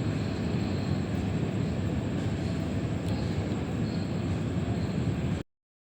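Steady background ambience: an even, continuous hum of noise with no distinct events, cutting off abruptly to silence near the end.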